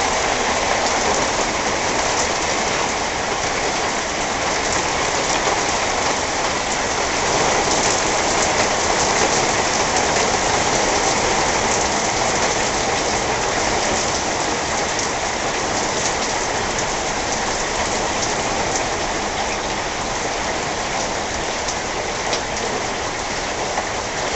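Heavy thunderstorm rain from a squall line falling steadily, heard from indoors beside a window. It eases a little toward the end as the storm passes.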